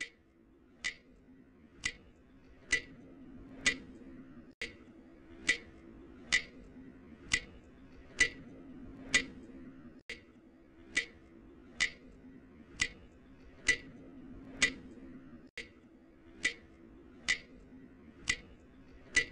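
Steady clock-like ticking, a sharp tick a little faster than once a second, over a faint low hum.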